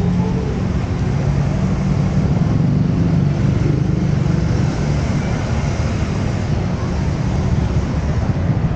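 Street traffic: cars and motorcycles running and passing close by, a steady low rumble with an engine hum.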